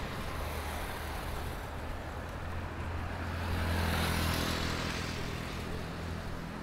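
A motor vehicle passing on a city street: engine and tyre noise swell to a peak about four seconds in and fade, over a steady low traffic hum.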